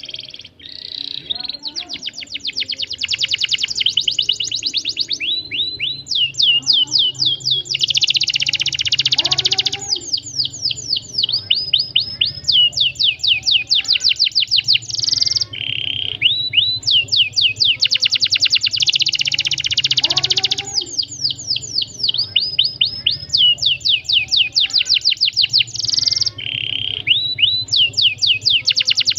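Domestic canary singing a long, unbroken song. Trains of rapid, repeated downward-sweeping chirps ('cuit cuit') alternate with dense, tight trills (rolls), all high-pitched.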